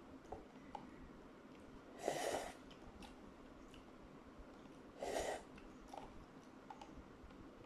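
Two slurps of tom yam noodle broth drunk straight from a tipped instant-noodle cup, each about half a second long and about three seconds apart, with a few faint small clicks between.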